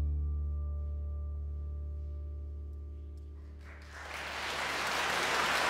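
Final chord on grand piano and double bass ringing out and slowly fading, then audience applause breaking out about four seconds in.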